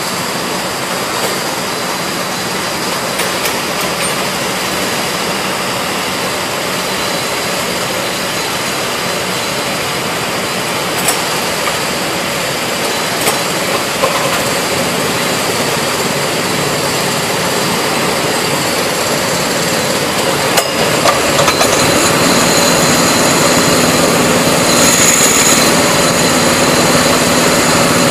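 Several go-kart engines idling together in a steady, dense drone, with a few sharp knocks in the middle. The noise grows somewhat louder in the last third.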